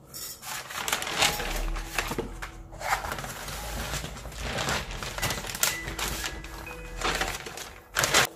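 Brown kraft packing paper crinkling and rustling as it is unrolled and folded around a foam-board package, with a louder crackle near the end.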